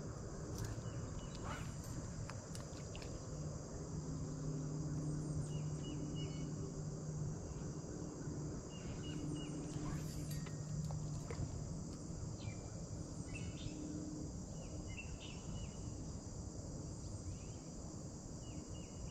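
Steady high-pitched chorus of insects in the swamp. A low hum comes and goes through the middle, and short chirps sound now and then.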